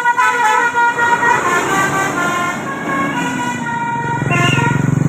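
A tour bus's telolet basuri multi-tone air horn playing a tune in stepped notes, with a low engine buzz rising near the end.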